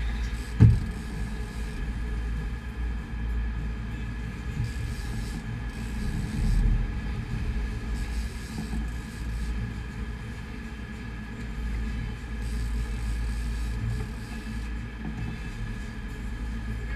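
Steady low rumble of a sportfishing boat running in heavy seas, with one sharp knock about half a second in.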